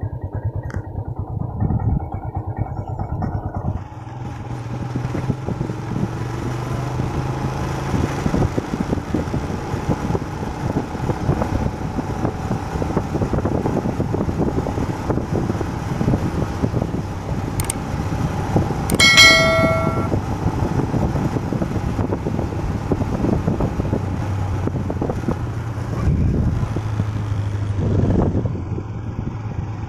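Motorcycle engine running while riding, its pitch shifting with speed, under heavy wind noise on the microphone. About two-thirds of the way through, a short bell-like ding rings for about a second.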